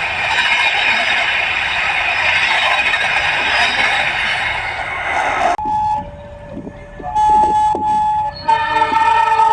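A steady, loud rushing noise that cuts off suddenly a little past halfway. Then come CC 206 locomotive horn notes: a short high toot, a lower note for about a second, and a higher note for about a second, before several notes sound together as a sustained chord near the end.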